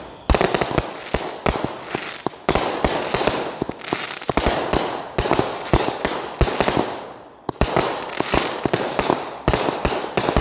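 Consumer aerial firework firing a rapid, irregular string of shots that burst with sharp bangs and crackling, easing briefly about seven seconds in before firing resumes.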